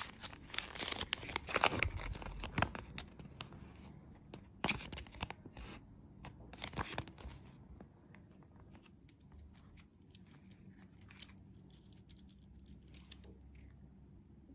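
A wrapper being torn open and crinkled by hand, with dense crackling for the first several seconds, then a few scattered ticks and rustles.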